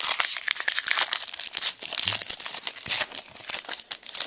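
Foil wrapper of a trading-card pack being crinkled and torn open: dense, quick crackling all through.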